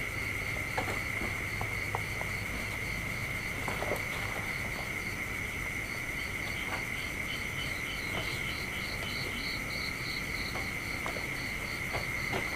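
Night insects: one keeps up a steady high trill while another chirps above it about three times a second, pausing briefly about five seconds in. A few faint clicks and scuffs.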